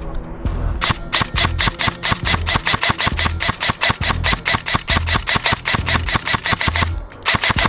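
Airsoft rifle firing a long rapid burst of evenly spaced shots, a short pause near the end, then another short burst, over background music with a steady bass beat.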